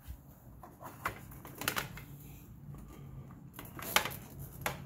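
A handful of irregular sharp clicks and light knocks as hands lift and push back the chrome tank console on a motorcycle's fuel tank, the sharpest about four seconds in.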